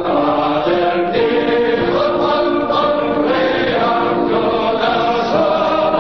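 Choral music: a choir singing held notes that change every half second or so.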